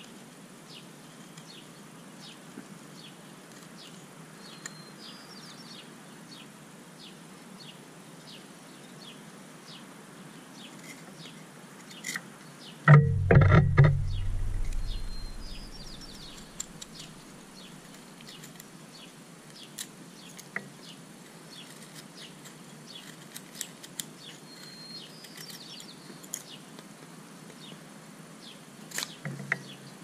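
Opinel carbon-steel pocket knife whittling a wooden stick: small scraping cuts and faint clicks as shavings come off, with birds chirping faintly. About halfway through, a loud burst of low rumbling and knocks lasting two or three seconds.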